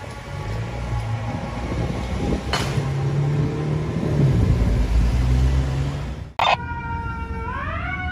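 Fire engine's diesel engine rumbling as it pulls away, with its siren slowly winding down and a short hiss about two and a half seconds in. After an abrupt cut a little over six seconds in, a siren wails, rising sharply near the end and then slowly falling.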